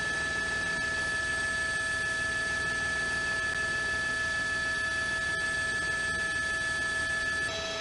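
Steady electrical hum and whine: several constant high tones over an even hiss, shifting slightly near the end.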